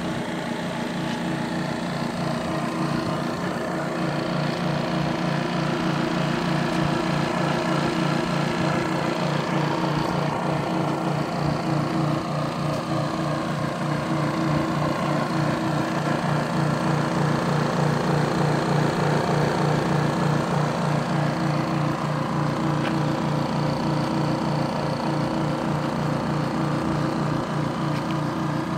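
DIABLO refrigerant recovery machine running, its compressor pumping refrigerant out of an air-conditioning system into a recovery cylinder. It makes a steady motor hum with fast, even pulsing.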